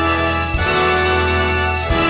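Broadway pit orchestra playing an instrumental show-tune overture: held chords over a steady bass, with two short percussive hits, about half a second in and near the end.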